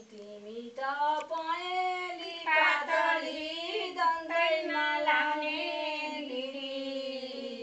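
Women's voices singing unaccompanied, a sangini, a Nepali women's folk song: one long melodic phrase with held, gently wavering notes that fades out at the end.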